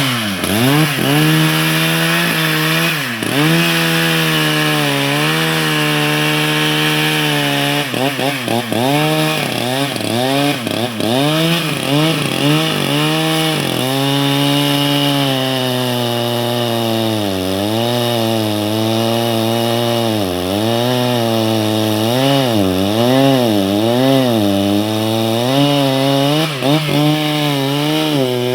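Chainsaw running hard while cutting into a large tree, its engine pitch repeatedly sagging as the chain bites into the wood and then climbing back, again and again.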